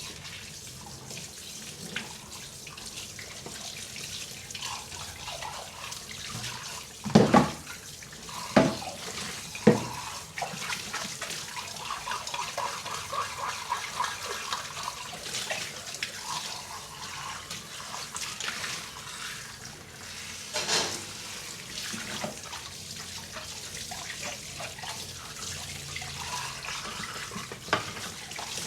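Tap water running into a kitchen sink while dishes are washed by hand, with the rustle and splash of the washing. Three loud knocks of dishes come close together about seven to ten seconds in, and another about two-thirds of the way through.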